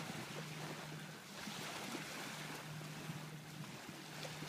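Outdoor seaside ambience: light wind and small waves lapping at a sandy shore make a steady hiss, with a faint low hum that comes and goes underneath.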